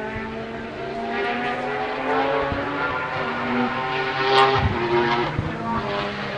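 Race car engine at full throttle accelerating through the gears, pitch climbing and dropping back at each shift, loudest as it passes about four seconds in, with a couple of sharp exhaust cracks.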